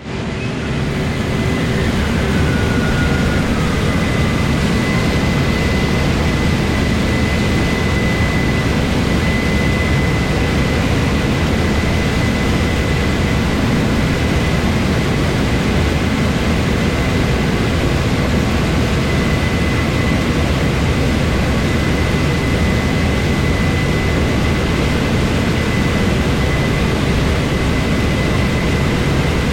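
Heavy harvest machinery running steadily at corn harvest: a dense, unbroken engine and machine drone with a steady high whine over it.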